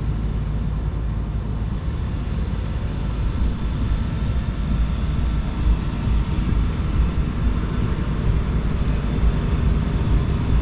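Steady aircraft engine noise: a continuous rumble with a heavy low end and faint sustained tones above it.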